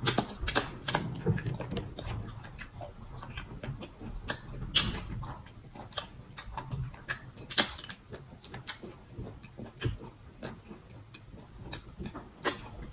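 Close-up mouth sounds of eating starch fufu with soup by hand: irregular wet smacks and clicks of chewing and finger-licking, a few a second.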